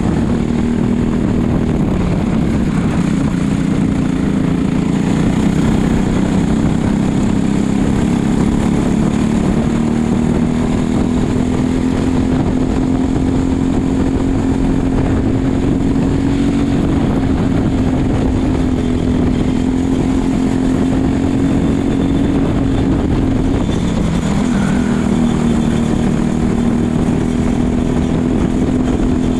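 Racing kart's engine at speed, heard from the driver's helmet camera through a lap. The pitch climbs slowly on the straights and dips briefly in the middle and again about three-quarters through as the driver comes off the throttle for corners, over a steady rush of wind and track noise.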